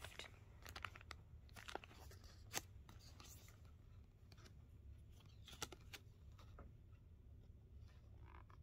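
Faint rustling and light clicks of a folded cardboard yarn label being handled and flipped open on a skein of yarn, over a steady low room hum.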